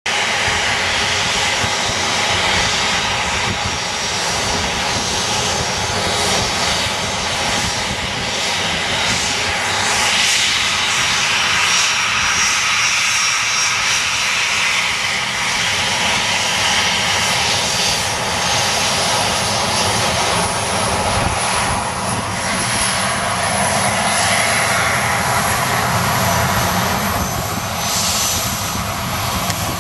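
Boeing 737-300's CFM56 turbofan engines running loud and steady at close range. In the last third a thin high whine rises slightly in pitch as the engines build power for the takeoff roll.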